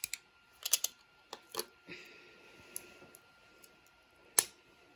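A blade prying and cutting printed plastic support material out of a 3D-printed part. It makes a scattering of sharp plastic clicks and snaps with a brief scrape about two seconds in. The loudest snap comes near the end.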